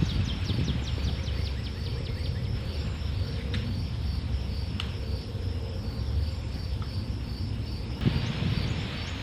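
Insects chirping in a steady, evenly pulsing high-pitched rhythm, with a low rumble underneath. A quick run of short falling chirps comes in the first second, and there are two sharp clicks around the middle.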